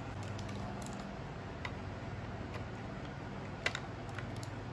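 Scattered small clicks and taps of airsoft rifle parts being handled: a small flashlight on its rail mount and a plastic fitting. The sharpest click comes a little over three and a half seconds in, over a low steady hum.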